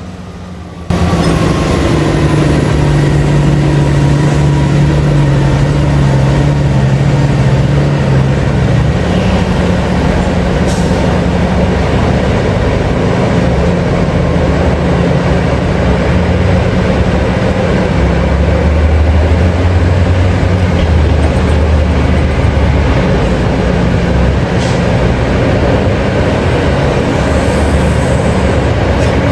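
Heavy diesel mining machinery running at work: a loud engine drone that starts abruptly about a second in and shifts in pitch several times as the machines load.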